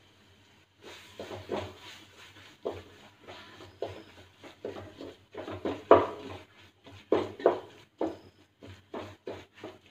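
A spatula stirring and scraping a thick masala around a metal pot, in irregular strokes starting about a second in, the loudest about six seconds in.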